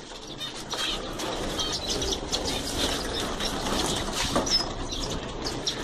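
Small birds chirping and fluttering, with light rustling and clicks.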